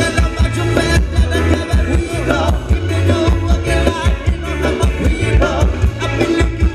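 Live Thai ramwong (Phetchaburi circle-dance) band playing amplified dance music with a steady beat, a bass line and a singer.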